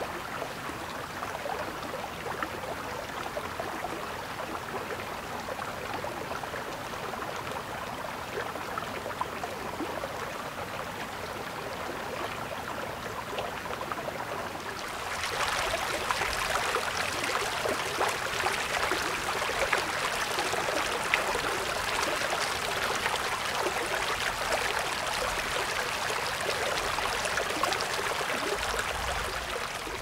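Steady rain pattering, a dense hiss of small drops, which gets louder about halfway through.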